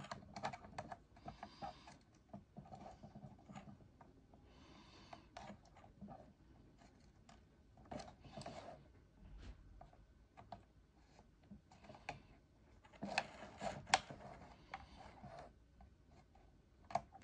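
Faint scattered clicks and light scratching of hands handling wires and a pen-style soldering iron tip against a small circuit board on a plastic lid, while desoldering. The handling grows busier for a couple of seconds about 13 s in.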